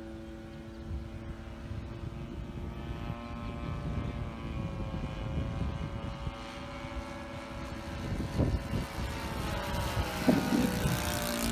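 OS .62 four-stroke glow engine of a Top Flite Elder 40 radio-control model airplane in flight, its propeller drone growing louder as the plane comes closer. The pitch slides as it passes near the end, over a low rumble of wind on the microphone.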